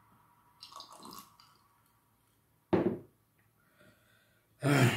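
Close-miked wet eating sounds as fufu and slimy okra soup are eaten by hand: soft squishing about a second in, then two loud, sudden wet mouth sounds about two seconds apart.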